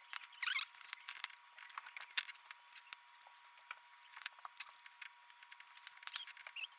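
Small screwdriver working out the side screws of a laptop screen: faint, irregular little clicks and metal scrapes, with a short squeak about half a second in and another near the end.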